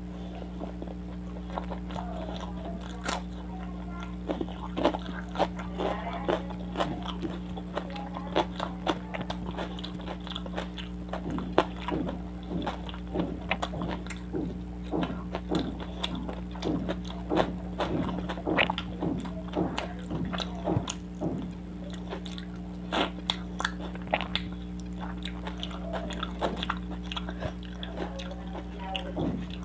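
Close-miked wet chewing and lip smacking of soft paratha and fish curry eaten by hand: a steady run of short, moist clicks with a few louder smacks.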